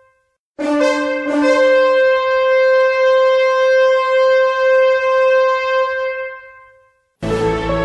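Shofar blast: a short lower note jumps up to one long held higher note that fades away. Background music begins near the end.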